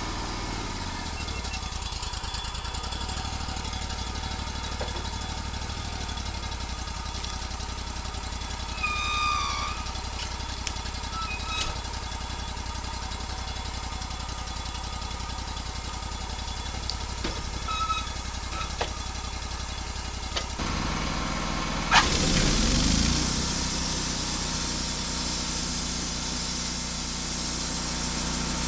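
Wood-Mizer LT35 band sawmill running steadily, then about three-quarters of the way in it grows suddenly louder with a harsh, hissing rush as the band blade goes into the log and cuts.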